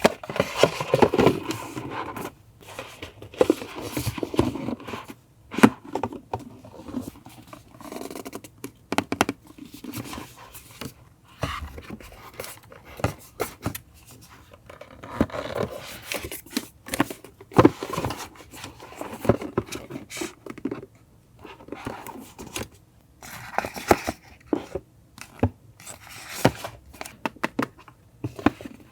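Paper and packaging handled close up: irregular rustling, scraping and tearing, with snips like scissors cutting paper and frequent sharp clicks.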